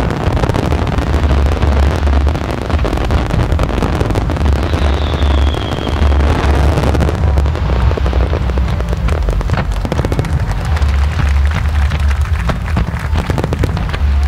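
Aerial fireworks shells bursting with repeated deep booms, with a faint whistle about five seconds in. From about seven seconds on, a dense run of sharp crackling pops.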